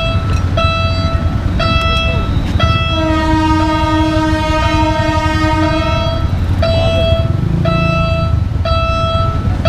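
A train horn sounds a chord of several tones for about three seconds in the middle. Before and after it, an electronic warning signal beeps about once a second, all over a steady low rumble.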